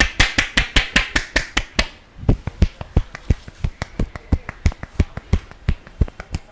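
Rapid percussive hand strikes of an Indian head massage, the barber's hands tapping in a steady rhythm of about five sharp slaps a second. The tapping breaks off briefly about two seconds in, then resumes a little slower.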